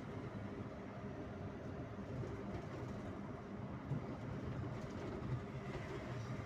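Cabin noise of a sleeper coach under way, heard from the front seat: a steady low engine and road rumble, with a couple of brief knocks about four and five seconds in.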